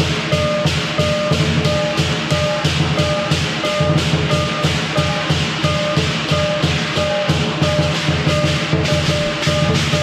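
Lion dance percussion: a large Chinese drum and hand cymbals playing a fast, steady beat. A ringing metallic tone recurs on the beat.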